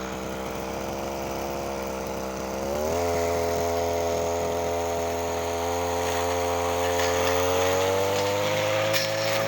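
Echo 240 brush cutter's small two-stroke engine running, its pitch jumping up about three seconds in as the throttle opens and then climbing slowly higher toward the end.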